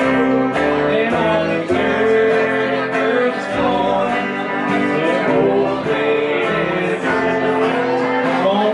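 Live country band playing: electric guitar over upright bass, with held notes and moving melody lines throughout.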